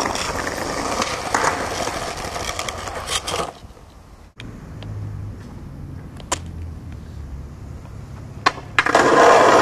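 Skateboard wheels rolling over tiled paving, a loud, even rolling noise. About four seconds in it drops to a quieter low rumble with a few sharp clicks, and the loud rolling comes back near the end.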